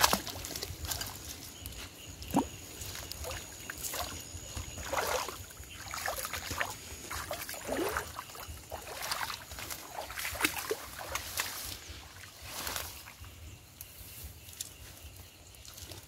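Irregular splashing, sloshing and dripping of shallow water as a wet cast net is hauled out and someone wades, with rustling of the net and leaves.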